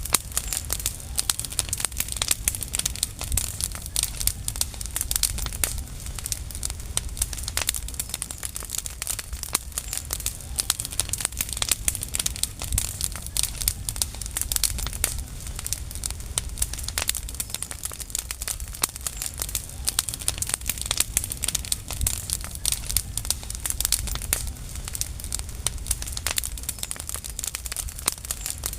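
Dry leaves burning, with dense, irregular crackling and popping throughout over a low rumble.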